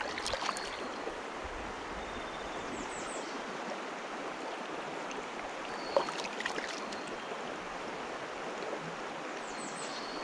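Steady rush of flowing creek water, with a few light knocks near the start and about six seconds in, and faint high, falling chirps twice.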